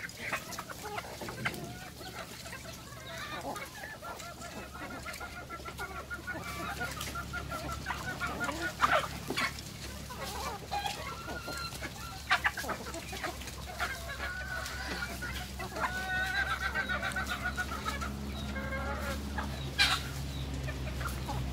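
A flock of chickens and roosters clucking and calling while being fed, with scattered sharp clicks among the calls. A steady low hum runs underneath and grows stronger in the second half.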